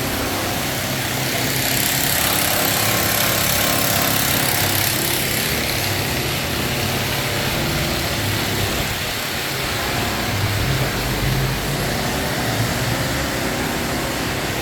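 Chainsaw engine running steadily, without a break.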